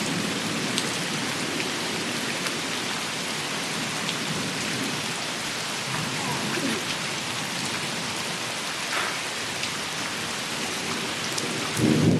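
Heavy rain falling steadily during a thunderstorm, with scattered drops ticking close by. Near the end, a low rumble of thunder swells up.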